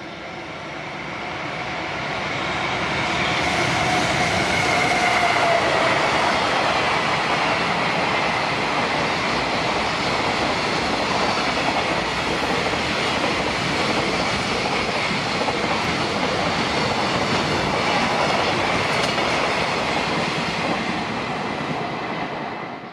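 Electric freight container train with container flat wagons passing at speed, its wheels running over the rails. The sound builds over the first few seconds and then holds steady, with a whine that falls in pitch about five seconds in. It cuts off abruptly near the end.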